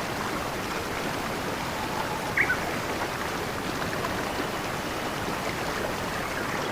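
A stream flowing steadily. About two and a half seconds in, a bird gives one short chirp that falls in pitch.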